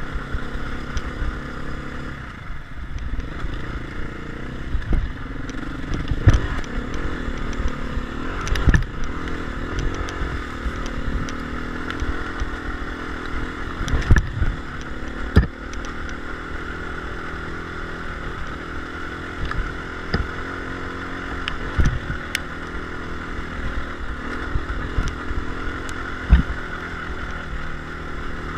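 Enduro motorcycle engine running as the bike is ridden over a rough, rocky dirt trail, its pitch rising and falling with the throttle. Several sharp knocks and some clatter from the bike jolting over rocks cut through it now and then.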